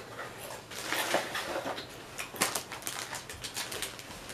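Plastic snack packaging crinkling and rustling as it is handled, in irregular short crackles.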